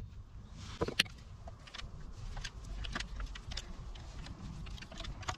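Small metallic clicks and taps from a hand impact driver being twisted by hand to back out the baffle screw of a motorcycle muffler, the seized screw having just been broken loose by a hammer blow. One sharper knock comes about a second in.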